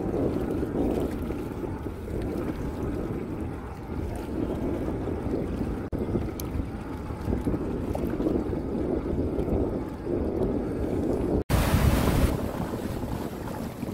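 Wind buffeting the microphone over water lapping around a small inflatable boat at sea. Near the end the sound cuts suddenly to a louder rush of wind and water as the boat runs under way, throwing a wake.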